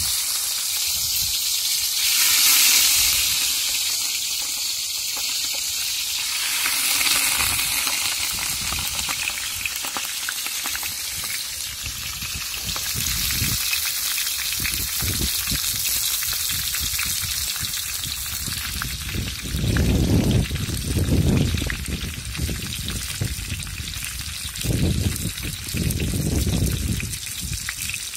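Sesame oil sizzling steadily in a wide aluminium pot as banana-leaf-wrapped fish parcels fry in it. A few low, muffled rumbles come in over the last third.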